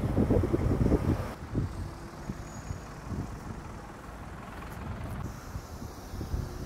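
Motorway traffic, with a lorry and cars driving past as a low rumble. It is loudest in the first second or so, then changes abruptly to a quieter, steadier traffic noise.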